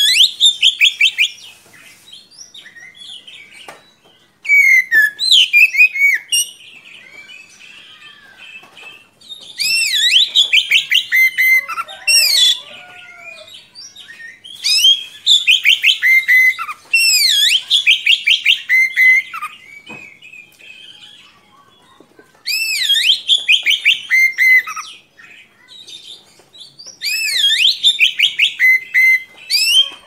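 Oriental magpie-robin singing: loud bouts of fast, repeated whistled notes, about six in all and each a couple of seconds long, with softer twittering between them.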